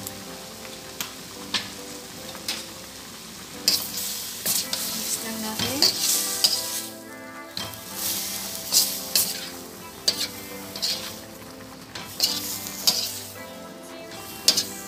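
A metal spoon scrapes and stirs shrimp, tomatoes and onions around a steel wok over a sizzle of frying. The stirring strokes start about four seconds in and come quickly and irregularly.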